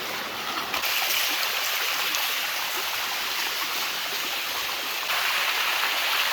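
Water rushing steadily down a shallow limestone waterfall cascade, a continuous hiss that gets louder about a second in and again near the end.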